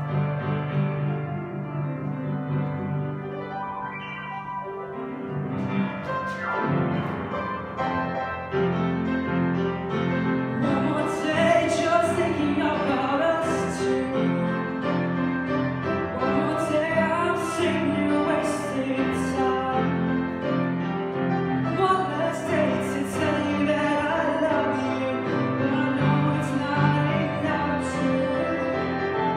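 Upright piano playing chords; about six seconds in, a male voice starts singing over it into a handheld microphone.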